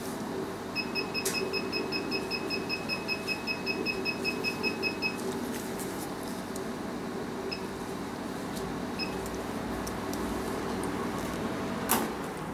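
Beauty machine beeping: a rapid even string of short electronic beeps, about five a second, for roughly four seconds, then two single beeps. A steady hum runs underneath.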